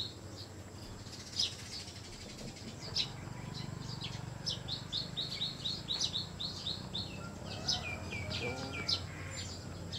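Small birds chirping: runs of short high chirps, with a quick series of falling notes near the end.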